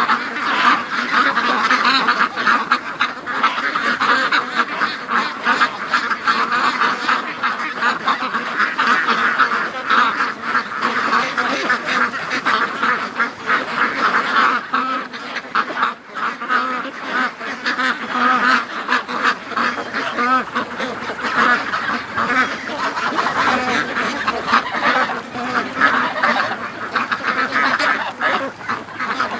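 A large flock of domestic ducks quacking continuously, many calls overlapping into a steady din.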